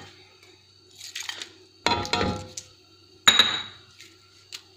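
Whole spices (bay leaves, cinnamon sticks, cloves, cardamom) tipped from a ceramic bowl into a pan of frying onions, landing in three short bursts of clinks and crackles. The last burst, about three seconds in, is the loudest, with a brief ring.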